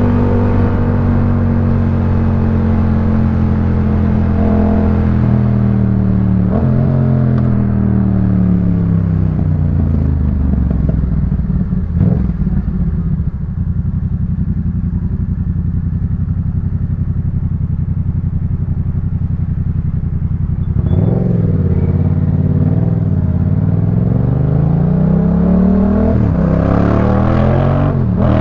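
Yamaha MT-07's 689 cc parallel-twin running through a Jeskap K4 full aftermarket exhaust while riding. The revs fall in steps through the first half, hold low and steady for several seconds, then climb again in steps through the gears in the last third.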